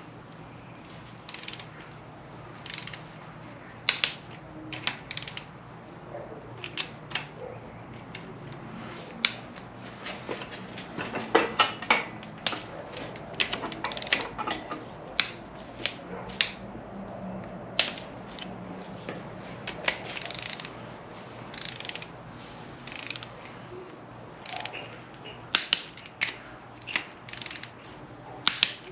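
Hand ratchet clicking in short runs, with scattered metallic clinks of tools. The cap bolts of a 1JZ-GTE bottom end are being turned through their final torque angle after a 22 ft-lb snug.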